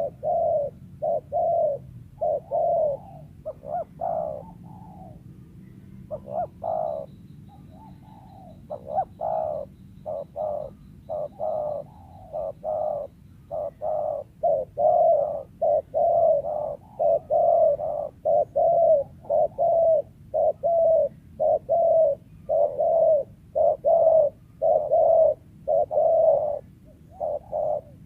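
Spotted dove cooing: a long run of short, low coos repeated over and over, irregular at first and then in a steady, louder series.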